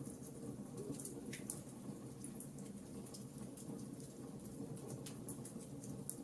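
Campfire crackling: irregular sharp pops and snaps of burning wood, several a second, over a steady low rumble of the flames.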